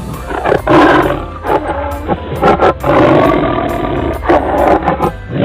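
A tiger roaring twice, long and loud, over background music.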